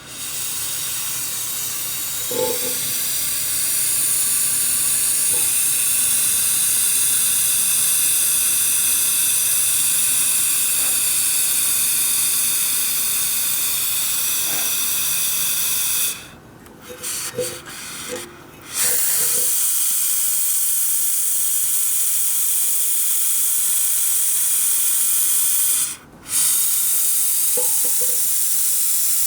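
Gas venting from a heater in a loud, steady, high hiss. About halfway through it breaks into a few quick sputtering cut-outs, a fsh-fsh-fsh, and a little later it stops for a moment before the hiss resumes.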